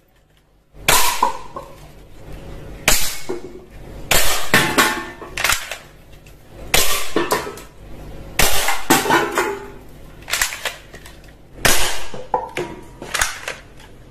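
Toy guns firing: about eight sharp, cap-gun-like bursts, one every second or two, some with a short ringing tail.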